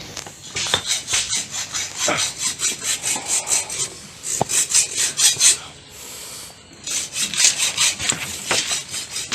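Hand saw cutting wood in quick back-and-forth strokes, about four to five a second, in runs that stop briefly about four seconds in and again for about a second near two thirds of the way through.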